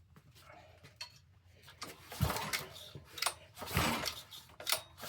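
Metal parts being handled: scattered light clinks and knocks, with two dull thumps about two and four seconds in.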